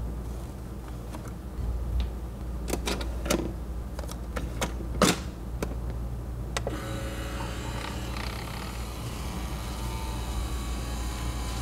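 Single-serve pod coffee maker: a series of sharp plastic clicks as its lid is shut and its controls pressed, the loudest about five seconds in. Then the machine starts running with a steady hum.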